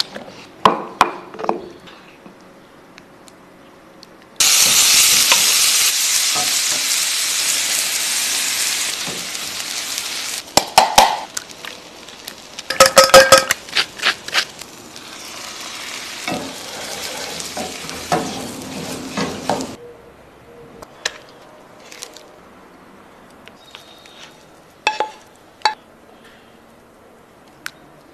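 A run of kitchen sounds. It opens with a stone pestle knocking and grinding chiles and tomatoes in a volcanic-stone molcajete. About four seconds in, a loud sizzle of food frying in a hot pan starts suddenly, fades gradually and stops sharply about twenty seconds in. Midway, a fork clatters quickly against a steel pot, beating eggs, and scattered soft taps follow.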